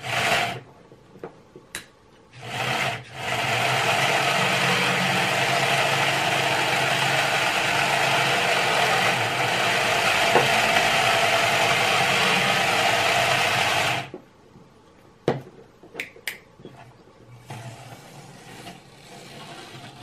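Small electric motor and plastic gearing of a Tyco US 1 Electric Trucking set whirring: two short bursts, then a steady run of about eleven seconds that cuts off suddenly, followed by a few light clicks.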